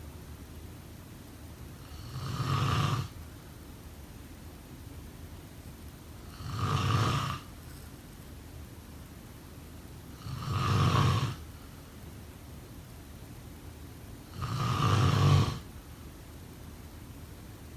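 A person snoring in sleep: four snores about four seconds apart, each lasting about a second, with a low rumble.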